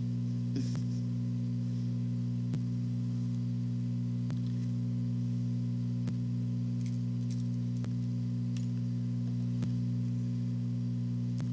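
Steady low hum made of several tones, with faint ticks at an even pace, about one every second and three-quarters.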